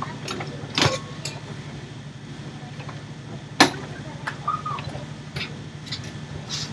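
Sleeper-train berth being folded up and stowed by hand: a few sharp clunks and knocks, the loudest about three and a half seconds in, with smaller taps between, over a steady low hum in the carriage.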